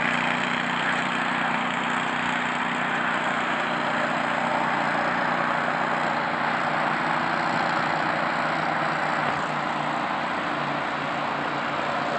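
Engine of a six-wheeled Argo amphibious ATV running steadily as the vehicle drives off the mud and out into the lake.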